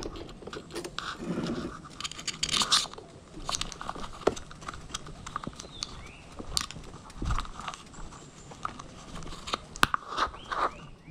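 Scattered clicks and scrapes of hands working a parked motor scooter's key switch and plastic panels, with a few louder sharp clicks.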